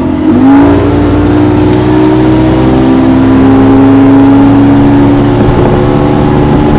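A 150 HP Mercury Optimax two-stroke V6 outboard is opened to full throttle. Its pitch jumps up about half a second in, then climbs slowly as the boat gathers speed.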